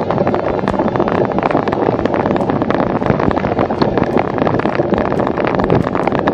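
Wind buffeting the microphone over the steady rattle and clatter of a cyclocross bike being ridden over bumpy dirt and pine needles, with many short sharp knocks all the way through.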